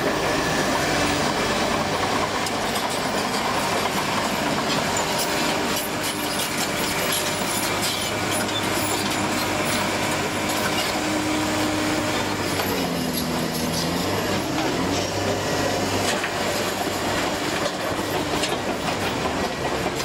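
Komatsu D61PXi-23 crawler dozer's diesel engine running steadily while it moves, its steel tracks clattering. The engine note dips briefly and rises again about two-thirds of the way through.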